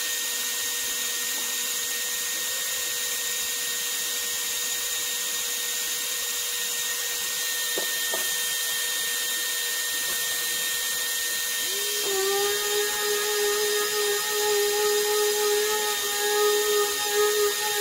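Dust extractor running steadily while the sander is off. About twelve seconds in, an electric random orbital sander starts up with a short rising whine and runs, sanding the wooden chest top.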